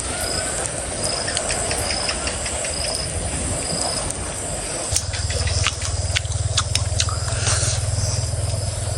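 Outdoor ambience of insects buzzing steadily, with short repeated chirps and scattered light clicks and taps. A low steady hum comes in about halfway through.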